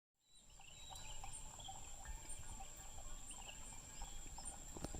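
Faint outdoor ambience: a steady high, thin whine with scattered small bird chirps over a low background rumble.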